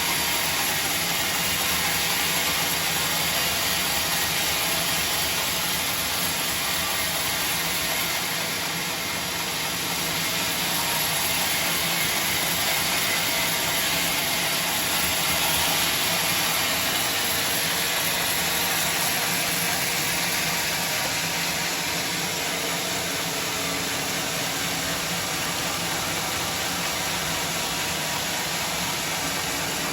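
Sawmill machinery running steadily, a dense even noise with a slight dip about eight seconds in.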